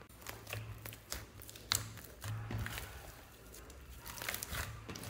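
Hands pressing and squishing a large lump of mixed slime, making irregular sticky clicks and crackling pops, with a sharper pop a little under two seconds in.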